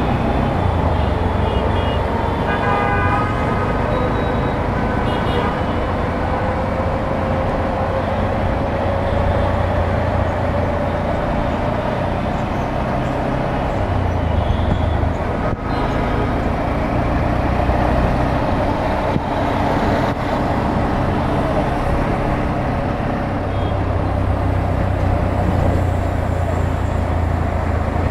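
Busy city road traffic heard from a moving bike: a steady rumble of engines and road noise, with vehicle horns honking, most clearly about two to four seconds in.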